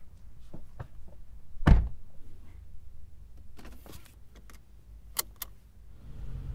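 Car door shutting with a heavy thump heard from inside the cabin, amid rustling as someone settles into the back seat. Two sharp clicks follow, then the car's engine and road noise start up as it pulls away near the end.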